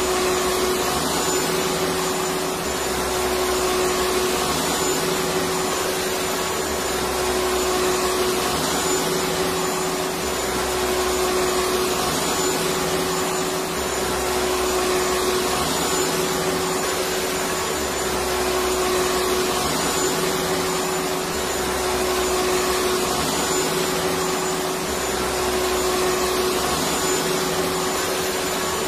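Electric vacuum cleaner running steadily: a continuous motor whir and airflow rush with a steady hum, swelling slightly every few seconds.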